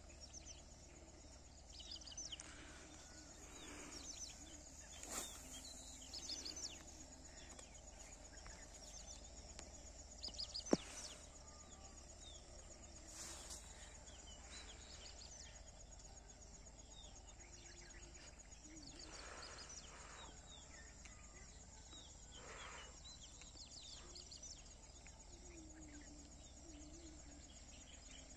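Faint outdoor ambience: scattered distant bird chirps over a steady high whine and low rumble, with one sharp click about eleven seconds in.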